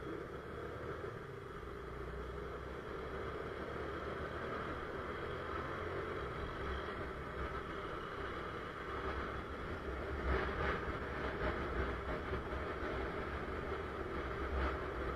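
Motorcycle riding along a road, picked up by a camera mounted on the bike: a steady engine hum and rumble mixed with wind and road noise.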